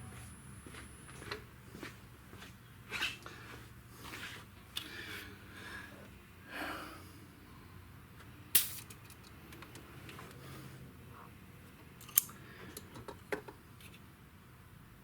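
Scattered clicks, taps and light rattles of handling, the sharpest at about eight and a half and twelve seconds in, over a faint low hum.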